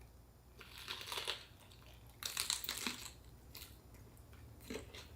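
Close-up crunching and chewing of a fresh spring roll filled with raw lettuce, cucumber and bean sprouts, in several short crisp bursts.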